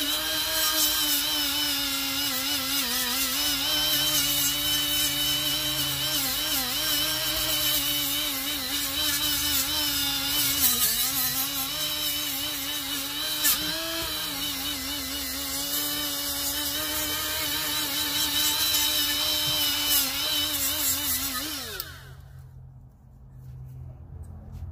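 Milwaukee right-angle die grinder running with a small surface-conditioning disc, grinding old gasket maker off a cast-iron exhaust manifold flange. The motor whine dips and wavers as the disc is pressed on. Near the end the trigger is released and it winds down.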